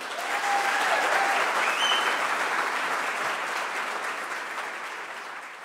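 Audience applauding, swelling quickly at first and then slowly fading.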